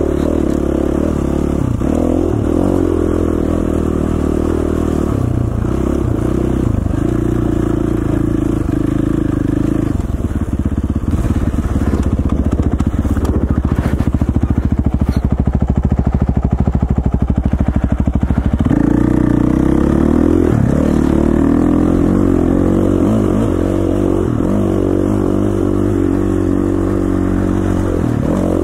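KTM 450 XC-F dirt bike's single-cylinder four-stroke engine running as it is ridden, the revs rising and falling with the throttle. For several seconds past the middle it settles into a slow, even chugging, then the revs pick up again.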